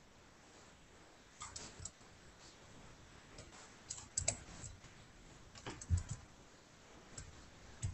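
Faint scattered clicks and keystrokes of a computer keyboard and mouse, coming in a few short clusters.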